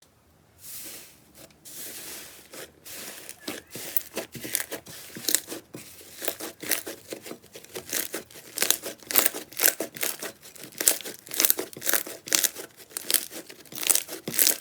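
Slime being worked by hand, giving dense, fast crackling and popping. It starts as softer hissing stretches and becomes sharper and louder in the second half.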